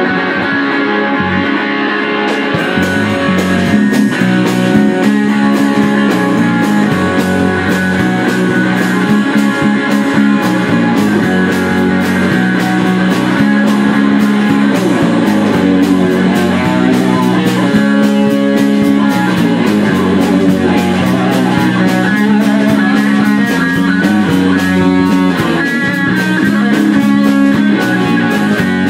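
Live rock band playing an instrumental passage with no singing: electric guitar, bass guitar and drum kit. The drums join with a steady beat about two seconds in.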